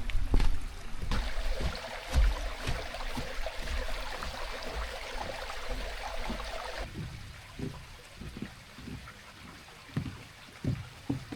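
Footsteps of a hiker walking down a mountain trail, soft low thuds about twice a second, with a steady rushing hiss for the first several seconds that cuts off suddenly about seven seconds in.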